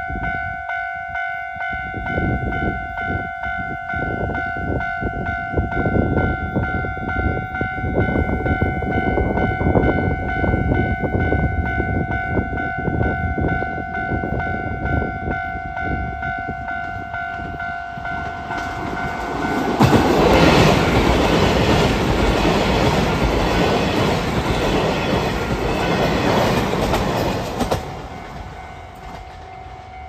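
Level crossing alarm ringing steadily while a six-car Kiha 261 series diesel limited express approaches with a growing rumble and rhythmic clatter of wheels on the rails. The train is loudest as it passes close for several seconds past the middle, then its sound falls away near the end.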